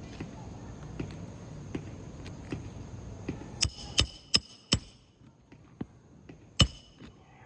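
Hammer strikes with a short metallic ring, from work on asphalt roof shingles: four quick blows about halfway through, then one more, the loudest, near the end, with fainter light taps about once a second before them.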